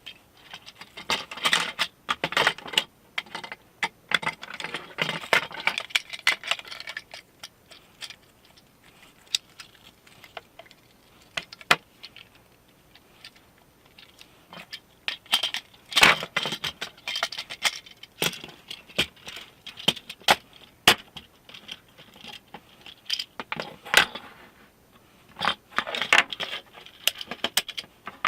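Parts of a C-Tug kayak trolley being handled and fitted together during assembly: irregular clicks, knocks and light metallic rattling, with a few louder knocks.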